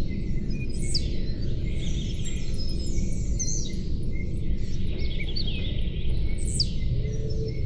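Several songbirds chirping and singing in quick, short calls, over a steady low background wash.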